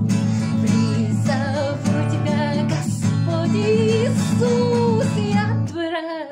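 Worship-song music: strummed acoustic guitar accompaniment with a melody line over it, between sung lines. Near the end the guitar stops for a moment, leaving the melody on its own.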